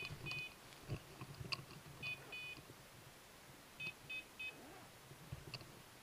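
A hunting dog's beeper collar sounds short, high electronic beeps in small groups of two or three every second or two. Faint footsteps crunch through dry leaf litter underneath.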